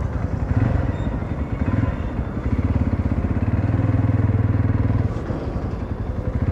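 Jawa 42's single-cylinder engine and exhaust running while the motorcycle is ridden, a steady low pulsing note that gets a little louder and steadier from about two and a half to five seconds in.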